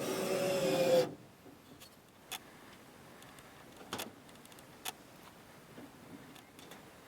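A motor runs with a slowly sinking pitch and cuts off suddenly about a second in, followed by a few faint sharp clicks.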